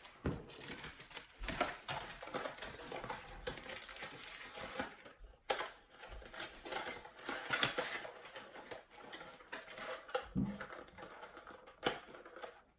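Cardboard blaster box and trading-card packaging being handled: a steady run of irregular clicks, taps, rustles and crinkles.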